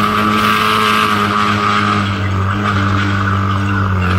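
Vehicle engine running at a steady speed while driving on a dirt trail, its pitch dipping slightly about two seconds in, with a constant hiss over it.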